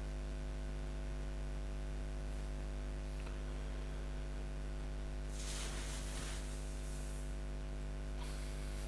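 Steady electrical mains hum with hiss on an idle recording line. Two brief soft rushes of noise come through, one about five and a half seconds in lasting over a second, and another near the end.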